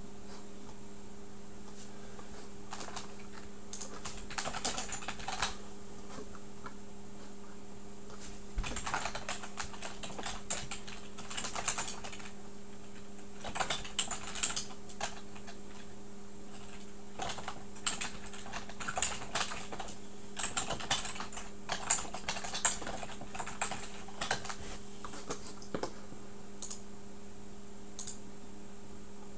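Typing on a computer keyboard in several runs of clicks a few seconds long, with a few lone clicks near the end, over a steady electrical hum.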